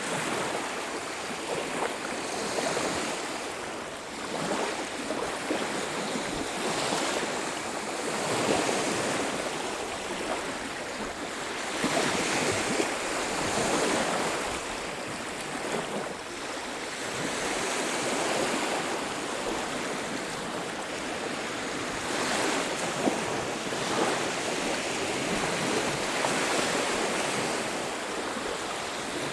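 Sea waves washing onto a beach, the surf swelling and easing every few seconds.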